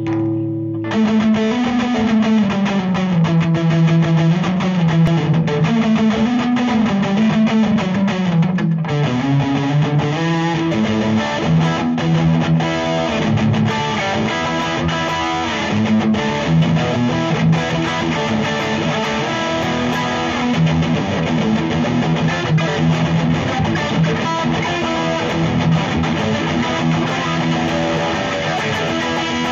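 Electric guitar playing a continuous improvised jam, wandering single-note lines mixed with strummed chords, starting about a second in.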